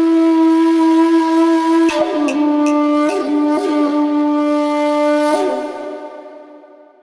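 Background music: a wind instrument playing long held notes, changing pitch a few times, then fading out near the end.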